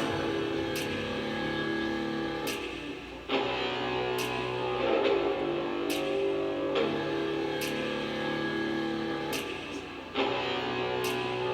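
Background music led by guitar, with sustained chords and a steady beat.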